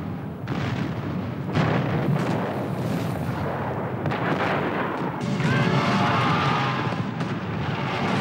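Black-powder cannon and muskets firing in a re-enacted seventeenth-century battle: a string of separate shots and booms about a second apart over a continuous din.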